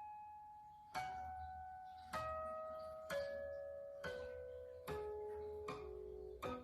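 Guqin playing slow single plucked notes, about one a second, each ringing out and fading, stepping down in pitch note by note, with a clear bell-like tone.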